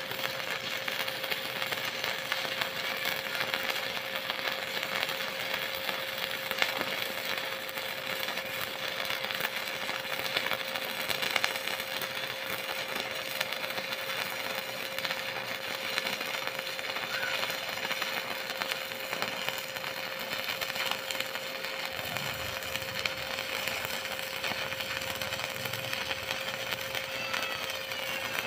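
Stick welding arc with a coated electrode, crackling and sizzling steadily and without a break as a flat bead is run on steel. A steady faint tone sits under the crackle.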